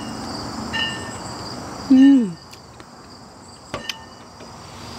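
Insects chirping steadily in the background. About two seconds in, a woman gives a short falling 'mmm' as she eats, and a brief click of chopsticks follows near four seconds.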